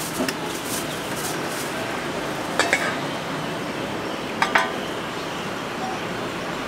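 Metal spatula clinking against a wok as pad thai noodles are stir-fried: two quick pairs of sharp metallic clinks over a steady background hiss.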